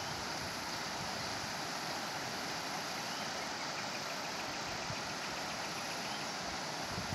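Steady rushing of a rain-swollen, rocky river running over shallow rapids.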